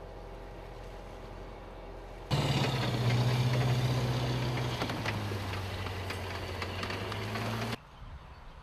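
Assault amphibious vehicle's diesel engine running hard, with clicks and splashing, as the tracked vehicle drives out of the water and up the beach. This loud stretch starts suddenly about two seconds in and stops suddenly near the end. Before and after it, a quieter vehicle engine runs steadily.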